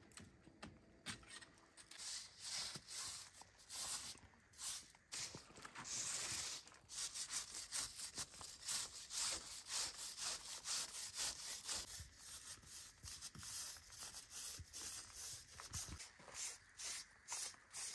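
Metal putty knife scraping old clay plaster and dust off a brick wall in short, quick strokes, several a second.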